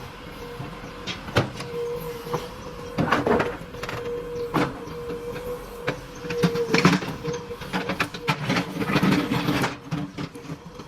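Backhoe loader working: a steady whine runs under repeated knocks and clanks, which come thickest in the second half.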